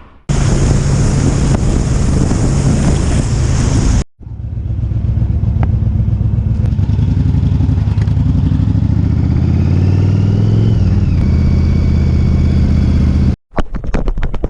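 Motorcycle engine running at road speed, with wind rushing over the microphone, in short edited segments that start and stop abruptly. In the longest segment the engine note rises as the bike accelerates.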